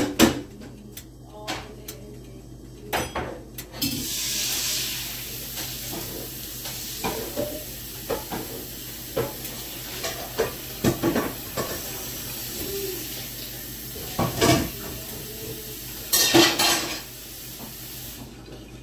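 Kitchen pans, plates and utensils clattering and knocking. From about four seconds in, a steady hiss runs until it stops sharply near the end.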